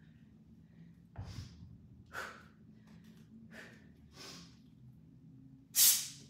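A woman's sharp, forceful breaths while lifting a kettlebell: about five short exhalations a second or so apart, the loudest near the end. A dull low thump comes with the first breath about a second in.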